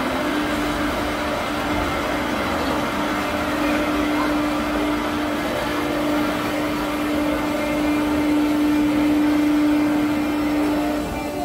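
Spinning octopus amusement ride running, its drive machinery giving a steady hum with one constant tone over a wash of mechanical noise, which cuts off near the end.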